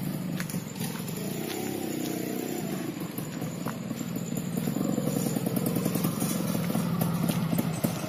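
Motorcycle engine running, its pitch swinging up and down briefly in the first few seconds and growing steadily louder toward the end.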